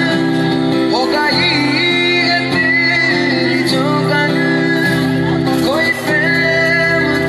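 A man singing live to his own acoustic guitar accompaniment, the voice carrying a bending melody over steadily held guitar chords.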